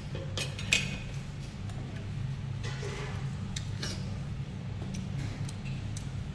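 Scattered clinks and taps of bowls and utensils at a meal table, the sharpest about a second in, over a steady low hum.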